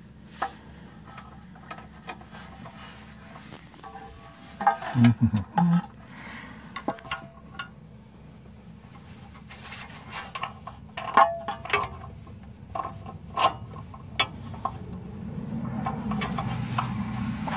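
Scattered metallic clinks and knocks of a wrench and a new sway bar end link being handled against a car's front suspension, with a burst of taps about five seconds in and more in the second half.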